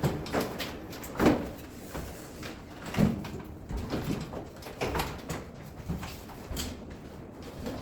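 Irregular knocks and clunks, roughly one a second, from hands-on work installing a wall-mounted air conditioner.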